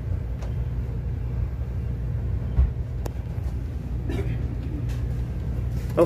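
Steady low background rumble, with one dull thump about two and a half seconds in.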